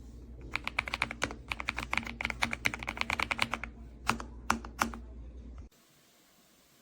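Typing on an AULA F108 Pro mechanical keyboard: a quick run of key clicks for about three seconds, then a few separate keystrokes, and the sound cuts off abruptly near the end.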